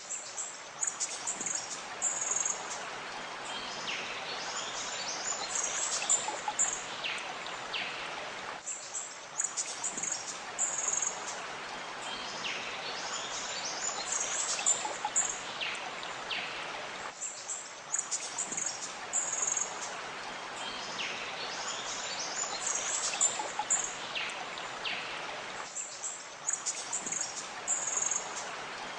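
Nature ambience of many birds chirping and calling over the steady rush of flowing water, a recording that seems to loop about every eight and a half seconds.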